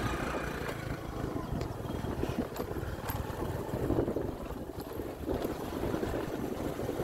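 Motorbike engine running steadily, dying away about a second in. After that, wind buffets the microphone in uneven gusts, with a few faint clicks.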